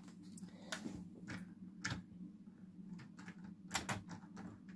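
Light plastic clicks and knocks as a brick-built model railway coach is handled, set down on plastic track and coupled to the coaches in front. The loudest click comes near the end, over a faint steady low hum.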